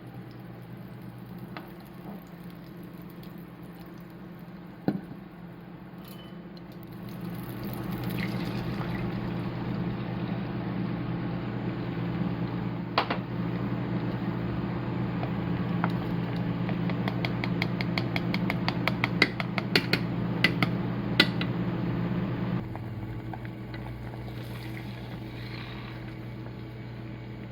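Kitchen work sounds over a steady electrical hum. From about a quarter of the way in it gets louder, with a rush of noise and then quick rapid clicks of a utensil against a bowl, as when eggs are beaten. The activity stops about three-quarters of the way through, leaving the hum.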